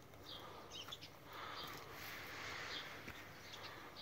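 Faint outdoor ambience with a few brief bird chirps.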